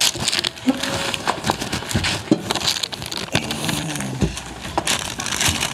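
Parchment paper rustling and crinkling as it is smoothed down over a neoprene wetsuit patch, with scattered sharp clicks and knocks of handling.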